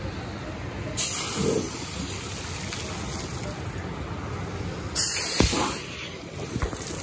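Water-ride spray effects going off in two sudden hissing blasts, about a second in and again about five seconds in, over the steady rush of water around the raft.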